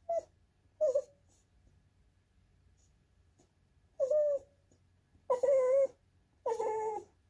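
Goldendoodle puppy whining in a sing-song way, fussing for a snack: two short whines in the first second, then three longer, wavering whines from about four seconds in.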